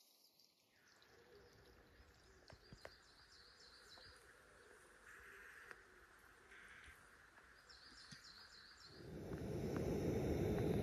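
Faint woodland birdsong, a few short high chirping phrases. About nine seconds in, a gas canister camping stove's burner comes in with a steady rushing hiss, which becomes the loudest sound.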